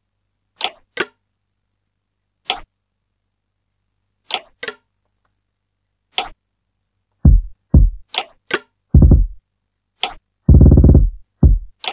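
A sparse programmed beat from a music production program: short, bright foley-style percussion clicks and snare hits on their own. From about seven seconds in, deep kick and 808-style bass hits come in, each dropping in pitch, and one held longer near the end.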